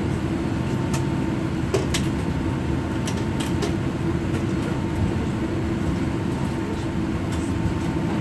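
Cabin noise inside a Boeing 787 Dreamliner taxiing: a steady low rumble and engine hum, with a few light clicks and rattles from the cabin.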